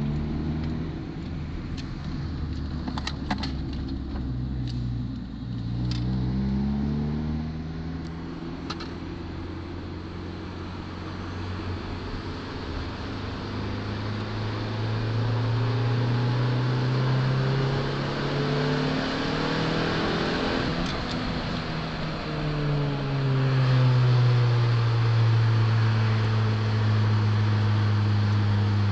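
Honda Civic EJ9's engine and exhaust running under way, its pitch rising as the car accelerates and falling back as it eases off, several times over.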